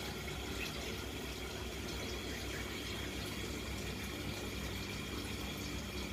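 Steady background noise: an even hiss with a low hum underneath, unchanging throughout.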